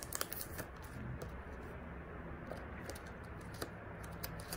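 Clear plastic photocards and their sleeves being handled: a few faint, scattered clicks and crinkles over a steady low hum.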